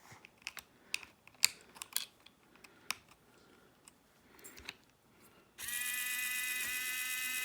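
Light clicks and taps of plastic parts and wire connectors being handled, then, about five and a half seconds in, a steady electric buzz lasting over two seconds from the RC truck's steering servo straining, which the owner takes as something wrong with his steering.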